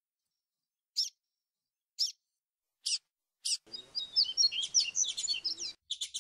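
Papa-capim (yellow-bellied seedeater) calling and singing: single sharp high chirps about once a second, then a quick jumbled burst of high twittering song for about two seconds from just past the middle, and another chirp near the end. It is the 'coleiro grego flautado' song type, set with chirps labelled as a female's calls.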